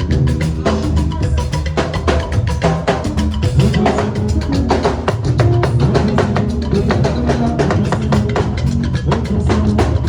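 Music with a full drum kit playing a fast, busy beat over a bass line.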